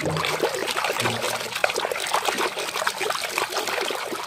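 Water splashing and sloshing as a hand swishes vigorously back and forth through a plastic tub of soapy water, churning it into foam; a steady, busy stream of small splashes.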